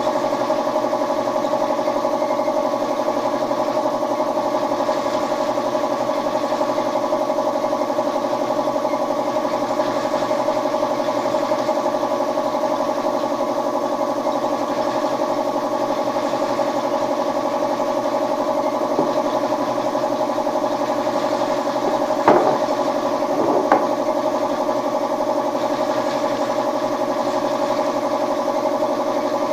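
Steady hum of a running motor, level and unchanging, with two short knocks about a second and a half apart near the end.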